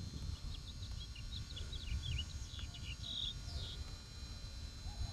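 A bird chirping, a quick run of short high notes through the first few seconds, over a steady low rumble.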